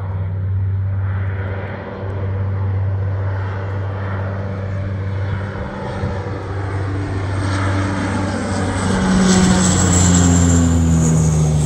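Firefighting water-scooping airplane's propeller engines droning as it flies in low, growing louder and passing overhead about nine seconds in, the pitch of its drone and whine falling as it goes by.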